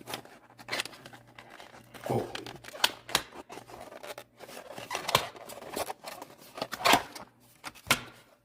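Packaging rustling and tearing while a wire stripper is handled, with several sharp clicks and snaps among the rustle.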